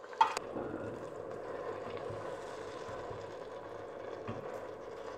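Red cabbage in a stainless steel pot coming up to the boil, a steady bubbling. A spoon gives one short knock against the pot just after the start.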